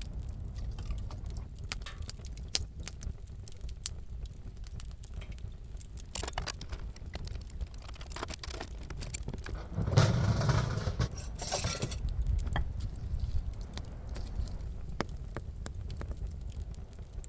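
Small things being handled at close range: scattered light clicks and rustling over a low steady rumble, with a louder burst of rustling about ten seconds in.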